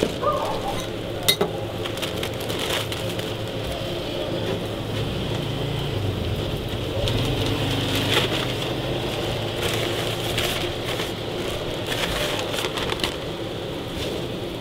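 Burger patties sizzling on a stainless flat-top griddle, with a few sharp clinks of metal utensils, the strongest about a second in, over a steady low hum.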